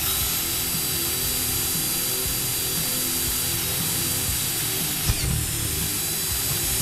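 Electric drill with a 3/8 inch bit running steadily, boring the hole for a Tortoise switch machine's throw wire through the model railroad layout's table. There is a brief knock about five seconds in.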